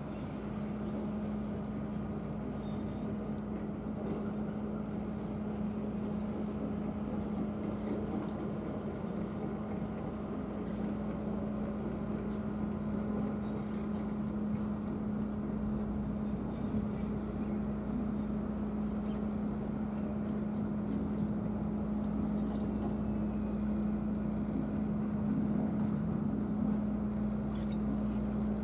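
An engine running steadily, a constant low hum that grows slightly louder toward the end.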